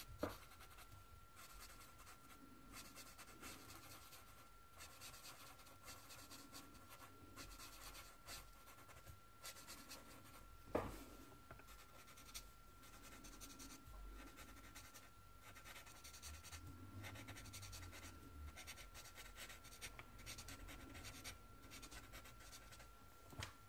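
Faint scratching of a felt-tip marker colouring on paper in many short strokes, with one sharp click about eleven seconds in.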